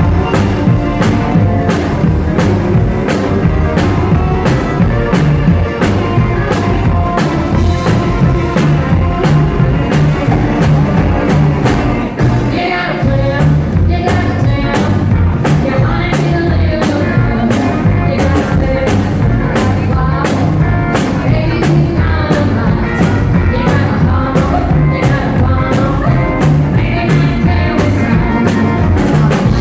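Live rockabilly band playing, with a drum kit keeping a fast, steady beat. The band briefly drops back about twelve seconds in.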